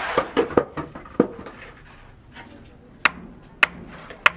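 Sharp knocks. A quick run of several strikes in the first second or so, then after a pause single strikes at an even pace, about one every 0.6 s.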